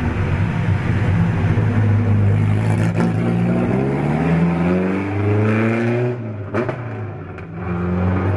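Ferrari 750 Monza's three-litre four-cylinder racing engine revving as the car accelerates away, its pitch climbing in repeated rising sweeps. It dips in level about two-thirds through and swells again near the end. A few sharp clicks fall in between.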